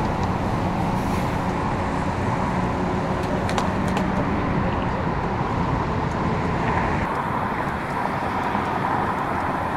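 Steady freeway traffic noise on wet pavement: tyre hiss and running engines, over a steady low engine hum. The high hiss drops away about seven seconds in.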